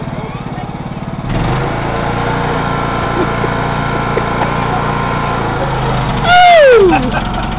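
Riding lawn mower engine running steadily, stepping up louder about a second in as it is throttled up. Near the end a very loud call close to the microphone slides steeply down in pitch over about half a second.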